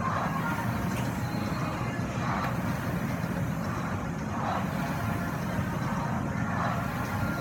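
Rowing machine worked at a steady pace: a constant low whir from the fan flywheel, with a rushing surge on each drive stroke about every two seconds.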